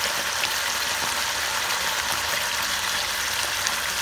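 Whole squid sizzling in hot oil in a frying pan: a steady hiss with small scattered crackles.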